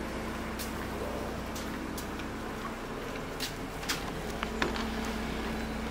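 Footsteps on a concrete porch and a few sharp clicks, with a doorknob being handled about four seconds in, over a steady low hum.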